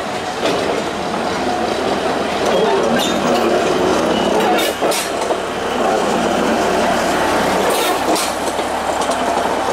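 Diesel locomotive DL47 of the narrow-gauge Alishan Forest Railway running as it hauls carriages, a steady dense rumble with a few sharp clanks from the rolling stock, about three seconds in, around five seconds and near the end. Voices of onlookers underneath.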